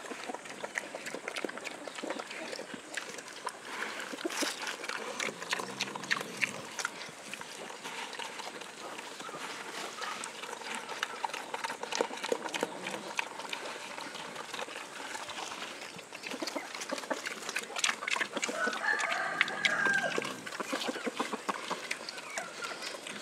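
Native pig eating azolla feed from a metal bowl, a steady run of quick wet chewing and smacking clicks. A chicken calls once in the background late on.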